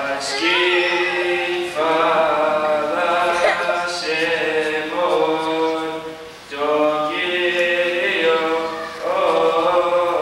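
A male deacon chanting a Coptic Orthodox liturgical hymn into a microphone, in long melismatic phrases with held, wavering notes and short breaks for breath about two and six and a half seconds in.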